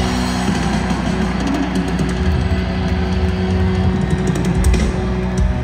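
Loud live rock band: distorted electric guitars holding sustained chords over drums and cymbals, with a shift in the held chord about half a second in.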